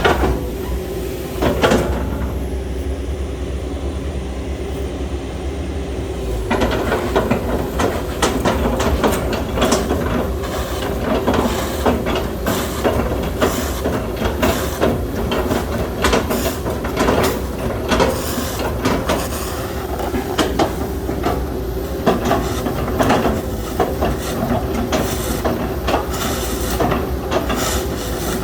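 Excavator's diesel engine running steadily. From about six and a half seconds in, a dense run of irregular cracks and crunches comes as the machine chops up oil palm trunks.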